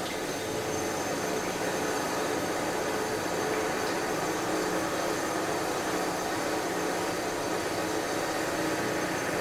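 Construction machinery running steadily: an even, unbroken mechanical drone with a faint steady hum in it.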